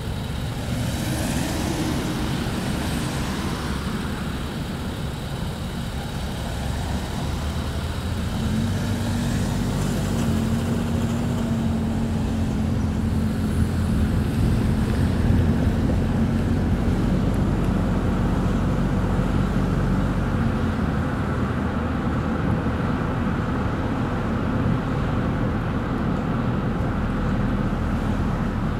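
A car driving along the road: steady engine and tyre noise, with the engine's hum standing out from about eight seconds in to about twenty seconds in.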